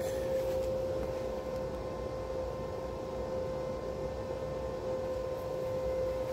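Steady hum at one constant pitch over a soft, even hiss, with no welding crackle.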